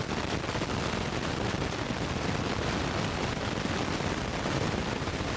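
Steady rushing roar with fine crackle: wind buffeting the camcorder microphone on a small yacht under way.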